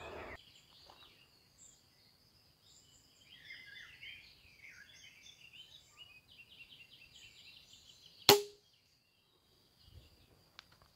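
An 80 lb pistol crossbow firing a bolt: one sharp snap of the string about eight seconds in, with a brief low twang. Before the shot, birds chirp faintly.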